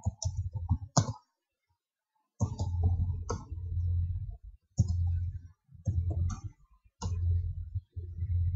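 Typing on a computer keyboard: bursts of clicking keystrokes over a low rumble, with a pause of about a second near the start.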